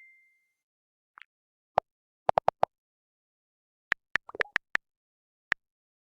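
Facebook Messenger chat sound effects: a clear chime fades out at the start, then about a dozen short pops follow at irregular gaps, four of them in a quick run.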